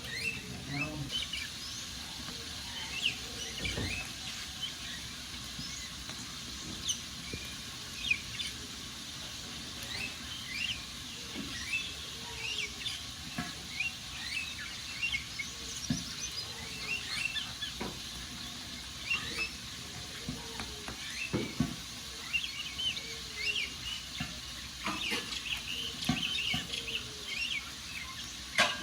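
Wood fire crackling and popping with sharp irregular snaps, while small birds chirp and twitter in short repeated calls.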